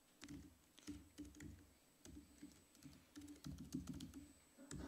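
Typing on a computer keyboard: faint keystroke clicks in short, uneven runs.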